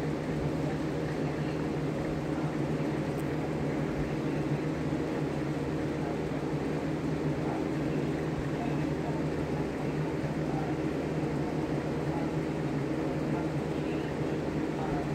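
Electric fan running steadily: a constant low hum with an even airy hiss.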